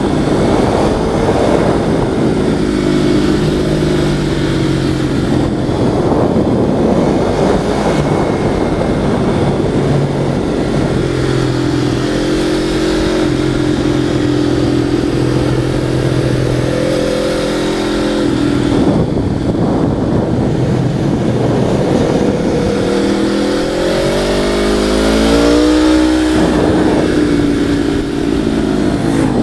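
A vehicle engine running under way, its pitch shifting with the throttle. Near the end it climbs and then drops away. Wind rush on a helmet-mounted microphone runs under it.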